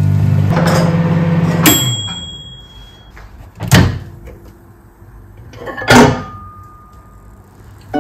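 A kitchen appliance hums steadily for the first couple of seconds, then shuts off with a click and a thin high tone. Two sharp knocks follow, about two seconds apart.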